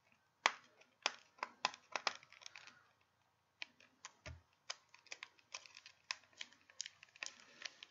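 Fingers and nails picking and peeling at a CD case's plastic shrink-wrap and sticky security strip: light, irregular clicks and crinkles, with a dull thump a little past four seconds in.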